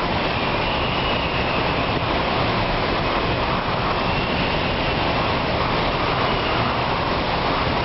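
Typhoon wind blowing hard and without a break, a dense steady rush of noise with a faint high whistle that rises and fades twice.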